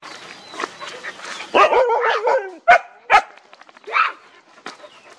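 Dogs vocalising: a wavering, whining cry for about a second, then three short sharp barks.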